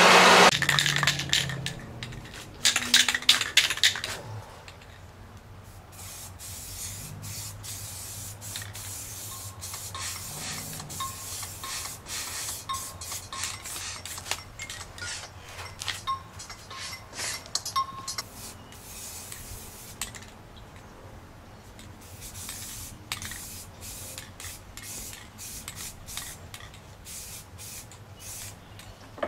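Aerosol spray-paint can spraying primer and then red paint onto a lawnmower deck in many short hissing bursts. A handheld blower cuts off right at the start.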